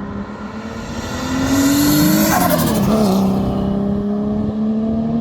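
Car engine running steadily at cruising speed, with another vehicle passing about two seconds in; its pitch drops as it goes by.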